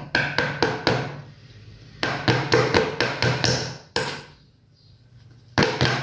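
Claw hammer tapping a small tack through cotton canvas into a wooden frame: quick runs of light strikes, about four or five a second, broken by short pauses.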